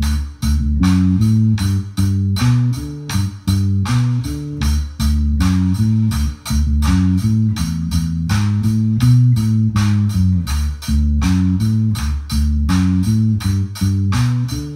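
Electric bass guitar and drum kit playing an instrumental groove: a bass line moving through changing low notes under steady drum and cymbal hits, about four a second.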